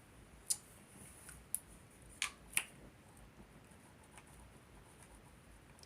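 Handling noise from small plastic items: a handful of light, sharp clicks and taps, the loudest pair about two and a half seconds in.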